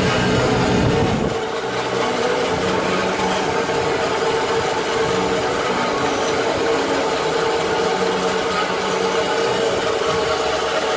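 Automatic band saw cutting machine running steadily as it slices a cotton roll, with a constant mechanical hum. A heavier low rumble stops a little over a second in.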